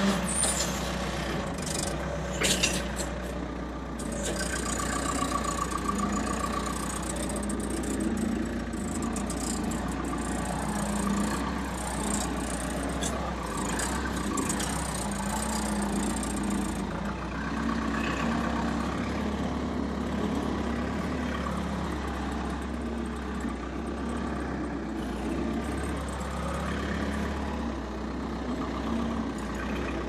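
Skid steer loader's engine running steadily while the machine drives, heard from inside the operator's cab. A few sharp clanks and rattles come in the first couple of seconds.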